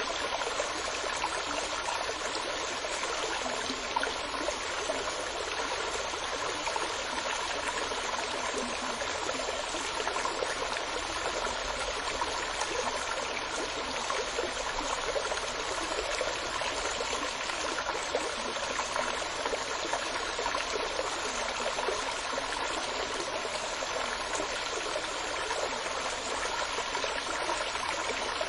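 Water flowing steadily in a stream, an even babbling and trickling rush with no pauses.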